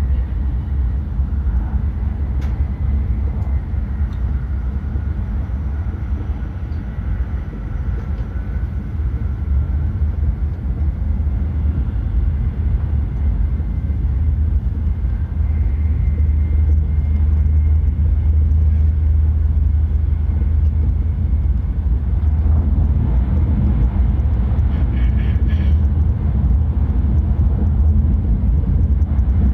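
Shinkansen train running at speed, heard from inside the passenger cabin: a steady deep rumble with a faint high whine above it.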